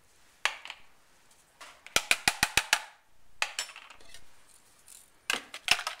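Wire whisk clicking rapidly against a ceramic mixing bowl, beating milk, flour and garlic powder together, starting about five seconds in. Before it, a single knock and then a quick run of sharp taps on the bowl about two seconds in.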